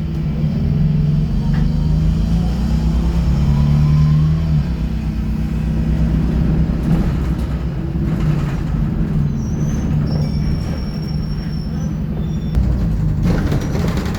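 Optare Solo single-deck bus engine running loudly with a steady drone. Thin high-pitched squeaks come and go over it in the second half.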